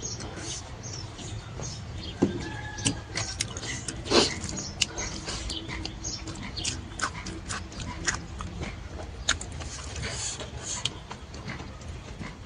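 Close-up eating sounds: chewing and lip-smacking on boiled smoked beef, a string of irregular wet clicks and smacks over a low steady hum.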